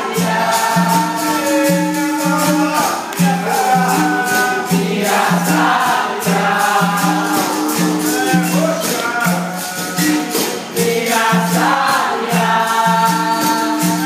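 Capoeira angola bateria playing a steady rhythm. Berimbaus repeat a two-note pattern with caxixi shakers, over pandeiro jingles and an atabaque drum, and voices sing along in chorus.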